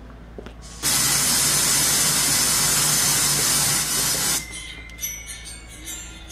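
A loud steady hiss, like white noise, that starts abruptly about a second in and cuts off abruptly some three and a half seconds later.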